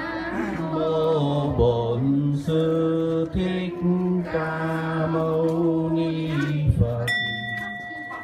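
A man chanting a Vietnamese Buddhist verse into a microphone, drawn out in long held notes. A steady ringing tone comes in near the end.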